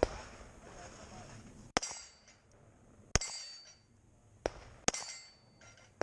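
Slow, deliberate pistol shots at a rack of steel plates, about five in all, spaced a second or more apart. Three of them are followed by a short metallic ring as a steel plate is hit.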